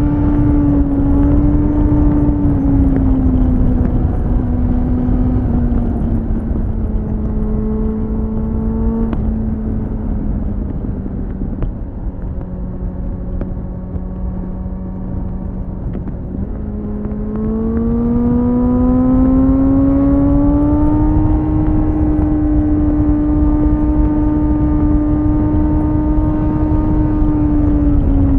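2001 Suzuki GSF 600 Bandit's inline-four running through a BOS slip-on exhaust, heard from on the bike: the engine note sinks slowly for about sixteen seconds as the bike rolls off, then rises over a few seconds as the rider opens the throttle again and holds steady. Heavy wind rush on the microphone.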